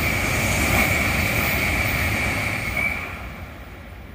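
Shinkansen bullet train passing at speed: a loud, steady rushing noise with a high whine on top, fading away from about three seconds in as the last cars go by.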